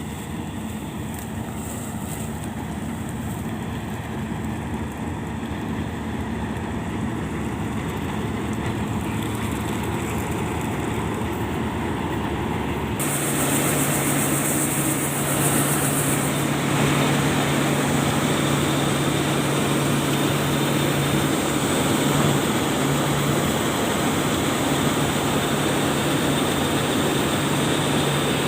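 Heavy diesel farm machinery running steadily and slowly growing louder; about halfway through the sound changes suddenly to a louder, fuller running noise with a steady low hum.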